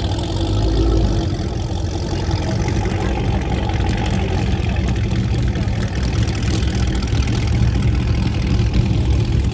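Corvette V8 engine idling, a steady low exhaust note with no revving.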